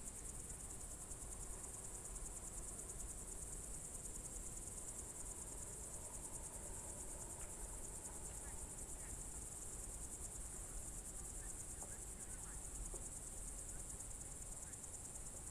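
Crickets trilling in a steady high-pitched chorus, with a few faint short chirps partway through.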